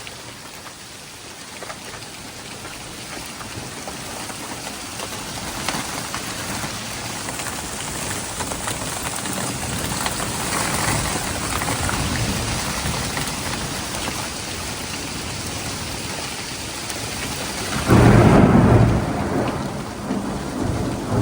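Heavy rain of a thunderstorm, growing steadily louder, then a loud, close clap of thunder about eighteen seconds in.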